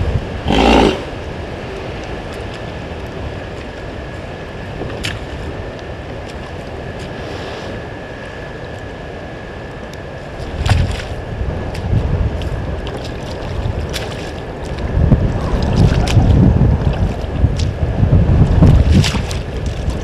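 Wind buffeting the microphone in gusts, a low rumble that swells and eases and grows stronger in the second half. A faint steady high tone runs underneath.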